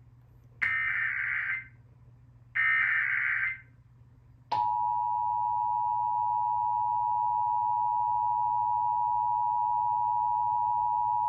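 Emergency Alert System test signal: two roughly one-second bursts of the SAME digital header data, then, about four and a half seconds in, the EAS two-tone attention signal starts and holds steady.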